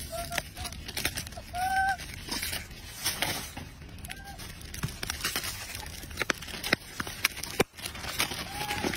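Macaque monkeys giving short, pitched coo-like calls four times, the longest about two seconds in, over scattered clicks and crackles from the monkeys handling plastic-wrapped snacks and bananas.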